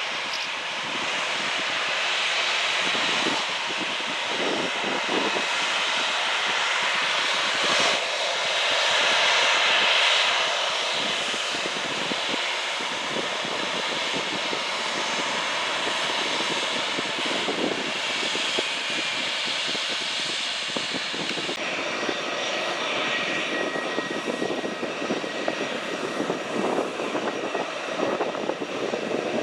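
Airplane engines at an airport running steadily, with a broad rushing sound that swells slightly about nine seconds in. A faint steady whine comes in during the last third.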